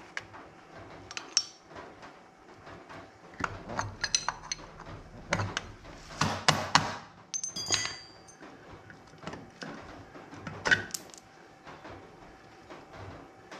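Steel hub and ratchet parts clinking and knocking as they are worked off a go-kart's front axle stub by hand, a hand tool tapping among them. Scattered metallic clicks, a few ringing briefly, busiest in the middle, with one sharp knock a little before the end.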